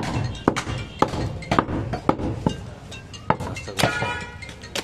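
A butcher's knife striking a wooden chopping block while cutting goat meat: a series of sharp, irregularly spaced knocks, roughly two a second.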